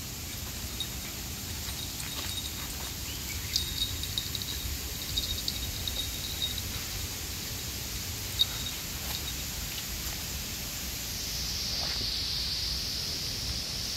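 Forest ambience with a steady low rumble. A few seconds in come runs of short, high clicking chirps and a sharp click. Near the end a steady high hiss swells in.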